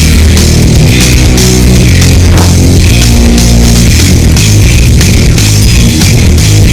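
Loud rock music with drums and distorted guitar, played as background music.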